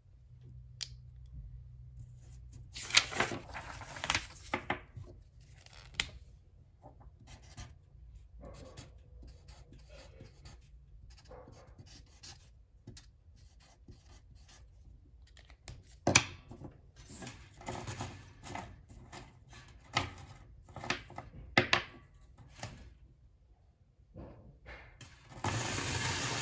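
Handling sounds of small parts on a wooden tabletop: scattered sharp clicks, scratching and rubbing as a battery with neodymium magnets and a bare copper wire coil are handled, with a marker pen writing on paper partway through. A longer stretch of rubbing near the end as the copper coil is moved.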